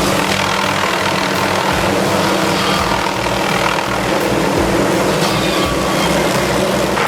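Helicopter running steadily: a low, even rotor beat under a constant engine hum.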